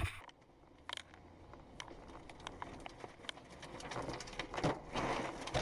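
Rain and flying debris striking a car in a tornado: scattered sharp taps that grow denser and louder toward the end. A short loud thud comes right at the start.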